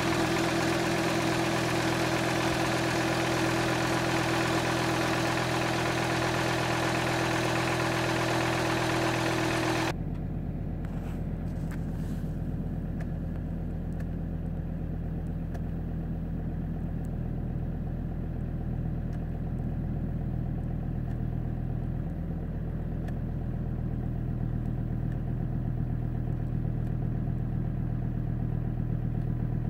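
Volvo V70 2.4 D5's five-cylinder turbodiesel idling steadily just after a cold start at −18 °C, heard from outside in front of the car. About ten seconds in, the sound cuts to inside the cabin, where the same idle becomes a muffled, lower hum at about 1000 rpm.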